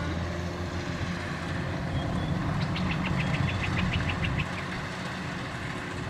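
Kubota DC-93 rice combine harvester running steadily as it cuts through ripe rice, a low even engine hum. About three seconds in, a quick run of high, evenly spaced clicks sounds over it for a couple of seconds.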